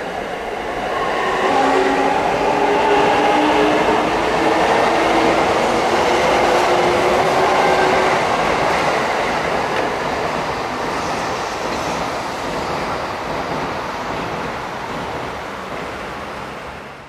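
An E259 series Narita Express electric train running past: a motor whine whose pitch falls slightly over wheel-on-rail rumble. It is loudest a couple of seconds in and then slowly fades.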